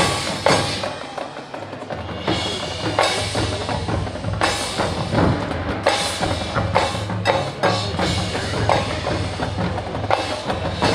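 Marching band playing its field show: sharp drum and percussion hits over held low notes.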